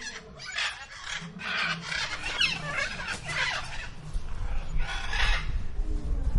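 Fowl squawking and clucking in a run of harsh, repeated calls, some sliding in pitch. A low rumble comes in about four seconds in.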